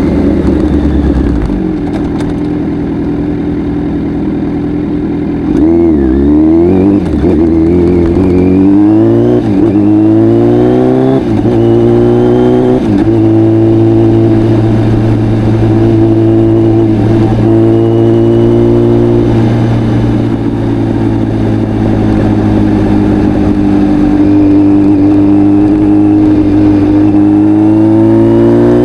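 Kawasaki Z900's inline-four through a full Akrapovic exhaust, running steadily at first. About five seconds in it accelerates hard through several gears, the pitch rising and dropping at each upshift. It then holds a steady cruise, rising a little near the end.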